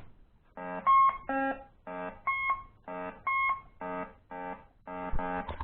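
Metal detector beeping through its newly fitted replacement speaker: about a dozen short tones at roughly two a second, alternating between a buzzy lower tone and a clearer higher one. The sound shows the replacement speaker is working.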